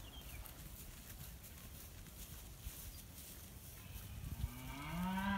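A steer mooing once, about four seconds in: a single drawn-out moo that rises slightly in pitch.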